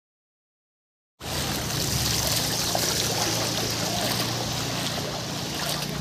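Steady wash of heavy rain and water on a flooded street, starting suddenly about a second in, with a low steady hum underneath.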